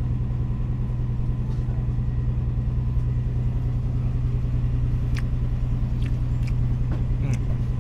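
A fishing boat's engine running at a steady low drone, with a couple of faint clicks about five to six seconds in.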